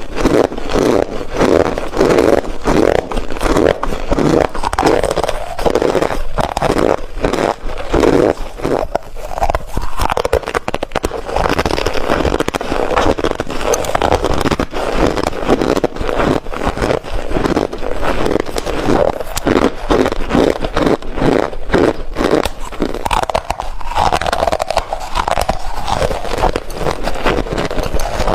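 Close-miked chewing of cornstarch: a rapid, unbroken run of crunches.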